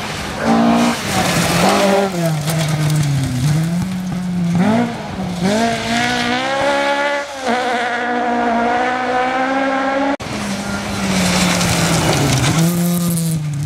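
Rally car engines at full throttle on a loose gravel stage, the pitch climbing and dropping in steps with each gear change and lift, over the hiss of tyres scrabbling on gravel. The car heard after the cut near the end is a Ford Escort Mk2.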